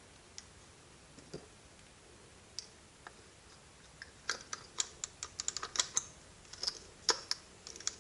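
Small sharp clicks and taps of a cordless impact driver's plastic housing and parts being handled and fitted together by hand. A few come singly at first, then a quick irregular run of them from about halfway through to near the end.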